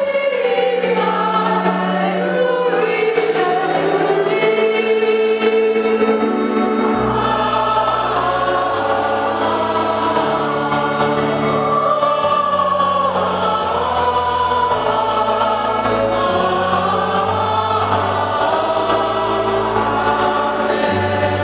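Church choir singing, with low accompanying bass notes joining about seven seconds in.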